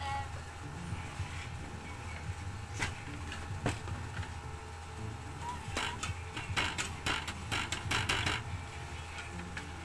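Handling clicks and knocks of tools and parts being worked by hand: two single knocks, then a quick run of clicking and rattling in the second half, over a steady low hum.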